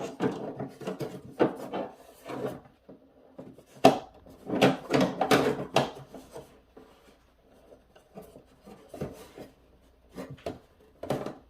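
Hard plastic pieces of a Super7 Snake Mountain playset knocking, scraping and clicking in irregular bursts as a breakaway wall piece is pushed into its slot, the loudest knocks coming around the middle.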